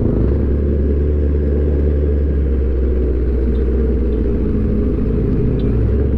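Kawasaki ZX-10R's inline-four engine running at low revs as the bike rolls slowly, a steady, deep engine note.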